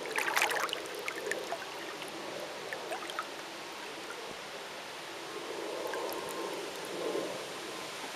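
Water splashing and trickling as a long pole is plunged into the lake from a boat and drawn back up, with small drips and a soft slosh about six to seven seconds in.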